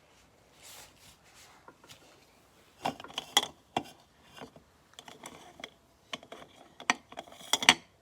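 Makeup brushes and small hard cosmetic items clicking and knocking together as they are handled and packed into a makeup bag: quiet at first, then a run of sharp clicks and clacks, the loudest near the end.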